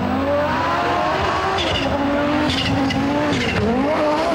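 Audi quattro Group B rally car's turbocharged five-cylinder engine running hard at a high, mostly steady pitch, dipping briefly about three and a half seconds in and then climbing again.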